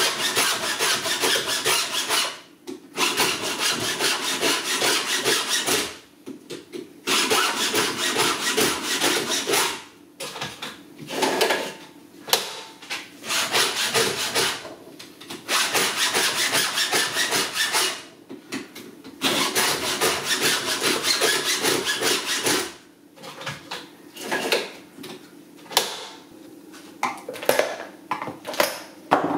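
A round file rasping across the cutting teeth of a chainsaw chain, sharpening a chain that has gone blunt. The strokes come in runs of a few seconds, with short pauses between them and shorter runs near the end.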